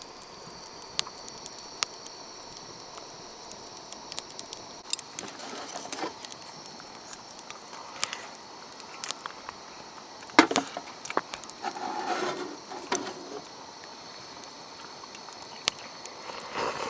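Steady high-pitched chirring of insects, with scattered sharp clicks and a few short rustles and knocks.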